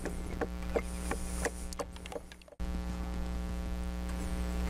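Steady electrical mains hum, with soft irregular clicks in the first half from engine oil glugging out of a jug into a funnel. About halfway through the sound drops out for an instant, and the hum comes back louder.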